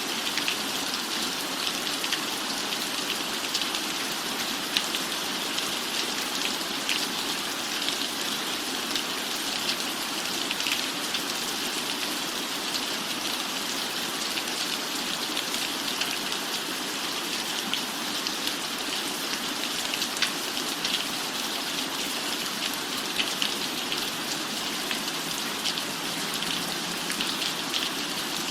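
Steady rain falling on a roof, an even hiss scattered with many small ticks of individual drops.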